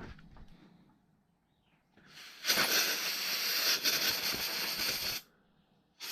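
Pressurised spray hissing while cleaning motorcycle fuel-system parts: one long burst of about three seconds starting about two seconds in, cut off sharply, then a short second burst near the end.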